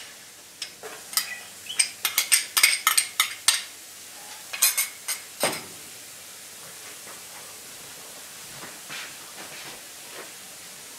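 Utensil clicking and tapping against a jar and the pan rim as minced garlic is spooned into a nonstick skillet, a quick run of sharp taps over the first half. After that comes a faint, steady sizzle of lemon juice and parsley flakes in the hot pan.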